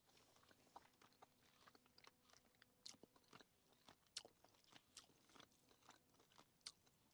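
Faint chewing: a person eating, with soft, irregular mouth clicks and small crunches.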